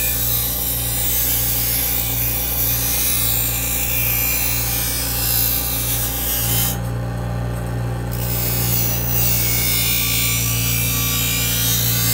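Electric bench grinder running with a steady motor hum while a thin metal rod is ground against its wheel, making a harsh grinding hiss. The grinding breaks off for about a second around seven seconds in, then starts again.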